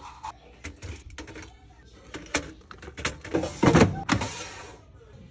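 Frozen battered fish fillets set down in an air fryer's basket with light taps and clicks, then the basket slid into the air fryer and pushed home, the loudest sound, a little before the end.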